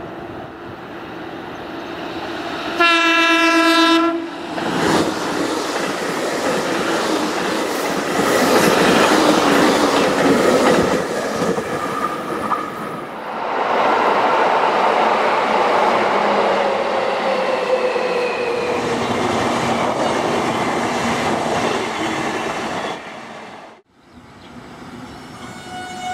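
Electric trains: a JR Kyushu 813 series EMU sounds one short horn blast about three seconds in and runs past with wheel and rail noise. Then a subway train pulls into an underground station, its motor whine falling in pitch as it brakes.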